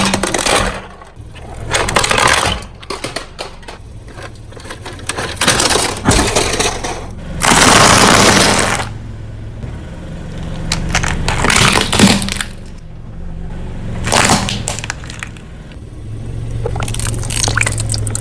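Objects crunching and cracking under a car tyre in repeated clusters, with a loud burst of noise lasting about a second near the middle. A low steady hum runs underneath.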